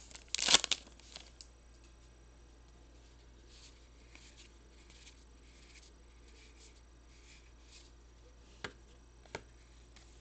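Baseball trading cards being handled: a short loud rustle about half a second in, then faint soft sliding of cards against one another, and two light clicks near the end.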